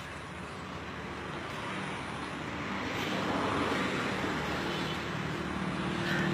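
Road traffic noise: motor vehicle engines running, swelling to their loudest a few seconds in.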